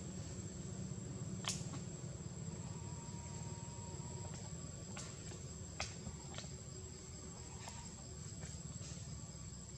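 Steady high-pitched drone of forest insects, with a few sharp clicks scattered through it, the loudest about one and a half seconds in.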